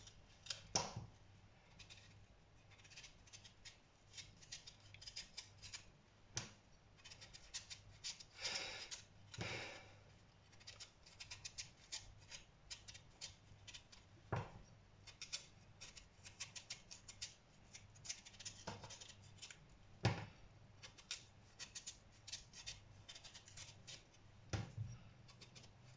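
Kitchen knife blade scraping and shaving the skin off a raw sweet potato held in the hand: quick, irregular scraping strokes in clusters, over a faint low hum.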